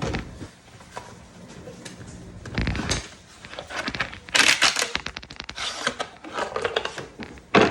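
Steel-case rifle cartridges clicking and rattling through a wooden Podavach U-Loader as an AR magazine is filled. About four seconds in comes a quick run of clicks, and a sharp knock comes near the end.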